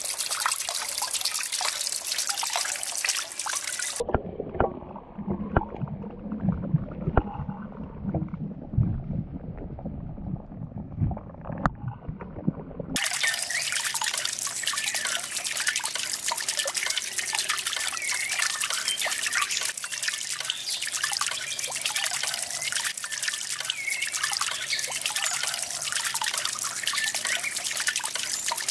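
Water falling from a fountain spout and splashing steadily into a shallow pond. For several seconds in the middle the sound turns duller and lower, with scattered sharp splashes.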